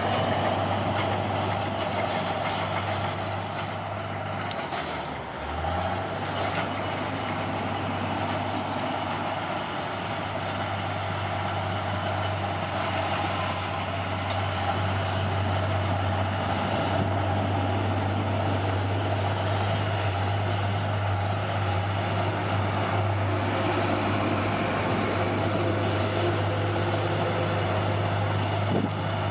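Caterpillar D6R bulldozer's diesel engine running steadily under work, dropping off briefly about five seconds in and then picking back up.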